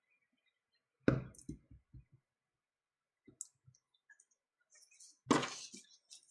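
Plastic clicks and snaps of the tablet's back cover clips being pried loose. There is a sharp snap about a second in, a few smaller clicks after it, and another sharp snap about five seconds in.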